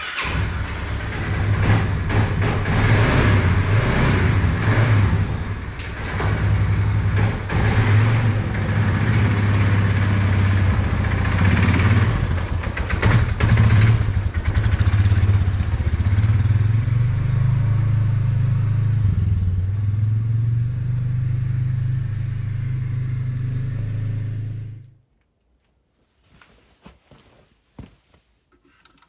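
The engine of a Polaris Sportsman 450 ATV running and being revved, its pitch swelling and easing; it cuts off about 25 seconds in, leaving near silence with a few faint clicks.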